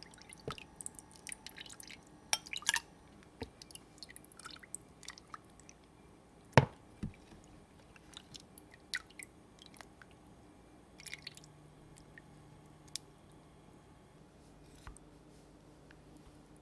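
A spoon scooping cabbage-cucumber kimchi and its broth from a container into a glass cup: small wet squelches, light clicks of the spoon against the containers, and drips of liquid. There is one sharper knock about halfway through.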